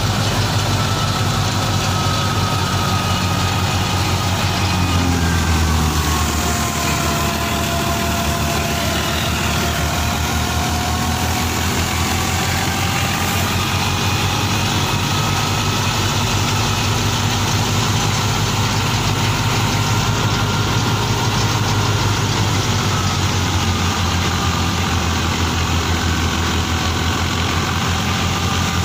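Fiat 480 tractor's three-cylinder diesel engine running steadily, with a faint whine that drifts slowly up and down in pitch.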